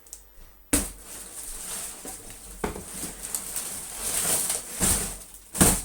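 Cardboard box and packaging being handled and pulled open: continuous rustling and scraping, with a few sharp loud rips or knocks.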